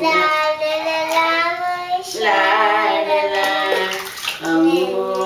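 A voice singing a Hindi bath chant in long held notes, in about three phrases, with water splashing as it is poured from a cup over a baby in a bathtub.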